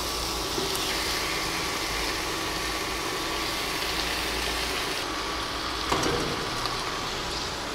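Raw chicken and masala sizzling in a non-stick pan on an induction cooktop as the pieces are mixed in by hand: a steady hiss over the low hum of the cooktop's cooling fan, with a light knock about six seconds in.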